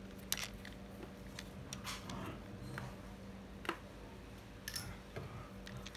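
Scattered light clicks and taps of plastic and metal as used spinning fishing reels are handled and turned over, at irregular spacing, over a faint steady hum.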